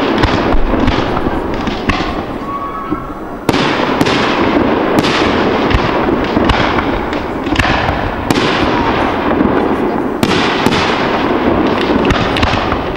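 Aerial fireworks bursting in quick succession, a sharp bang roughly every second over a continuous crackle and rumble from the display. There is a short lull a few seconds in before the bursts resume.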